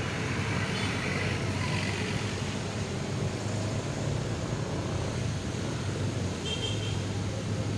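Steady background rumble and hiss, with a brief faint high chirp about six and a half seconds in.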